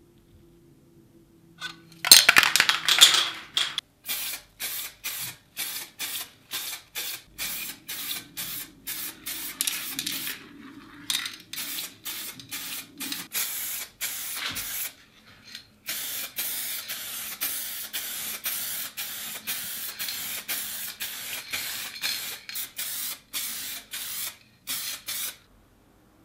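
Aerosol spray can of car paint hissing in short bursts, about two a second, then in longer, almost unbroken sprays from about sixteen seconds in, stopping just before the end.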